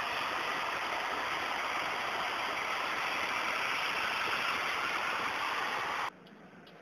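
High-pressure water jet from a fire hydrant hose and branch pipe, rushing and spraying in a steady hiss, cutting off suddenly about six seconds in.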